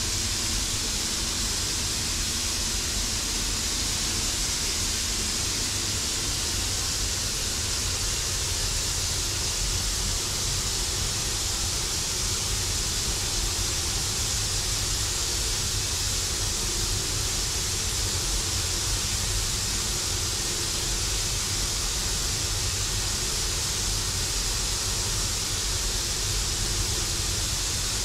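Steady, even hiss of steam from a small vertical-boilered steam locomotive, with a low rumble beneath it.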